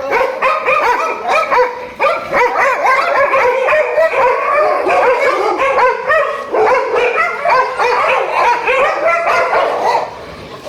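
Several pit bulls barking, yipping and squealing over one another in a loud, unbroken din, the noise of the pack worked up in a squabble.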